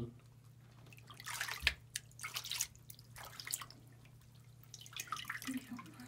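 Water splashing and dripping in a plastic basin as a bird is washed by hand, in irregular splashes about a second in and again near the end. A steady low hum runs underneath.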